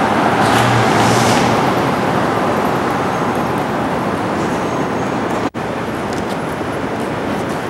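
Steady city street traffic noise from passing cars, dropping out for an instant about five and a half seconds in where the recording cuts.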